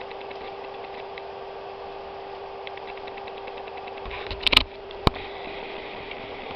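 Handling noise from a leather planner and its box: a sharp double click about four and a half seconds in and a single click half a second later, over a steady hum with faint rapid ticking.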